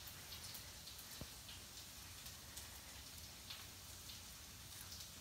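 Faint, even crackling sizzle of sliced onions frying slowly in a pan, with one small sharp click about a second in.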